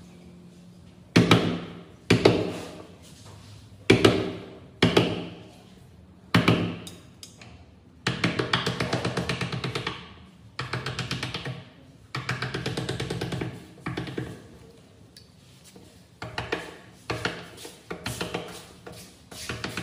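Claw hammer striking a wood chisel to cut a hinge recess into the edge of a wooden door. There are a few single heavy blows first, then runs of quick light taps, then scattered blows near the end, each knock ringing briefly.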